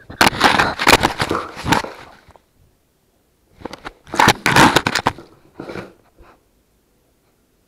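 Puppies chewing on an action camera, their teeth crunching and clicking on its plastic case right against the microphone, in two bouts with a short pause between.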